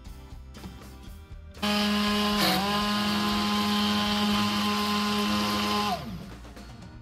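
Immersion blender motor switching on about a second and a half in and running at a steady high hum for about four seconds, dipping briefly in pitch once as the blades bite into the egg and oil, then winding down as it is switched off. It is emulsifying the mixture into mayonnaise.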